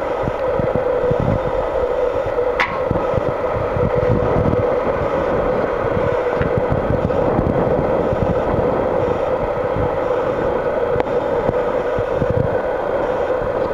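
John Deere 5820 tractor's diesel engine running steadily with a constant hum, while wind buffets the microphone. A single sharp click comes about two and a half seconds in.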